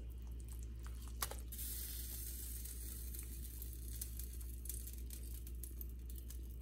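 Hot alfredo sauce poured from a skillet over penne: a click about a second in, then a steady soft sizzling hiss with faint scattered ticks over a low steady hum.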